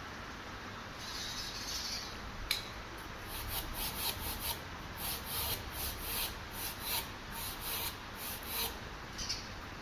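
A hand rubbing against an upright pipe set in wet mortar, in short repeated strokes, roughly three a second. A single sharp click comes about two and a half seconds in.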